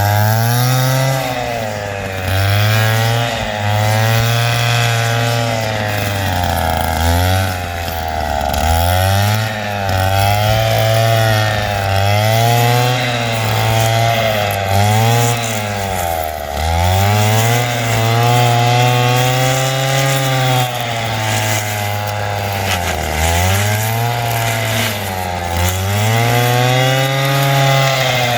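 Stihl FS 160 two-stroke brushcutter running hard while clearing undergrowth. Its engine pitch rises and falls every second or two, sagging deeply several times as the cutting load bogs it down, then recovering.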